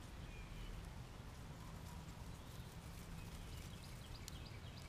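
Faint outdoor background with a steady low rumble, and a few faint light crackles late on as a daylily clump is pulled apart by hand.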